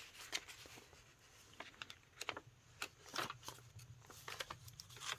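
Soft, scattered rustles and light taps of paper pages and card inserts being handled and turned in a handmade journal.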